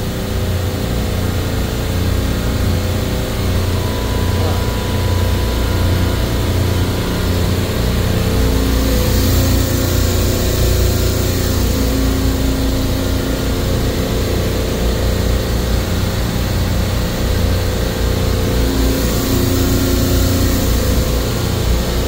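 Supermarket refrigeration compressor rack running in its machine room: a loud, steady low drone and hum with steady tones above it. A brief wash of hiss comes up about nine seconds in and again near twenty seconds.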